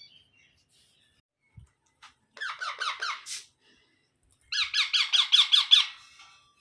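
Baby parrot calling in two bursts of rapid repeated calls, about ten a second; the second burst, a little past the middle, is longer and louder.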